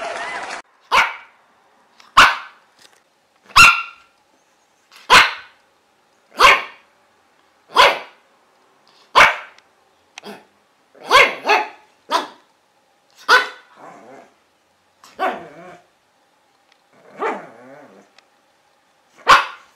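A dog barking, single barks at roughly one-and-a-half-second intervals, about fifteen in all, some coming closer together in the middle and a few rougher and lower near the end.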